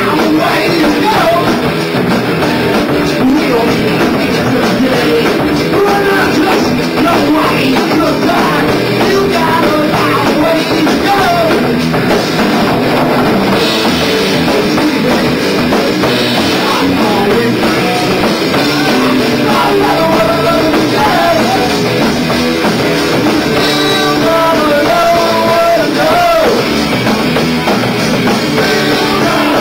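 Rock trio of electric guitar, bass guitar and drum kit playing a song live, loud and without a break.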